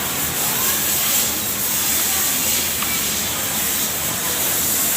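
Steady, even hiss with no rhythm or rise and fall, continuing unchanged throughout.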